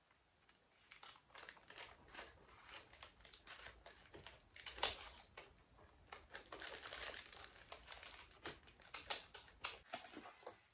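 Hands handling a Canon zoom lens and its caps and packaging: a faint run of light plastic clicks and rustles, with one sharper click about five seconds in and cardboard box flaps being worked near the end.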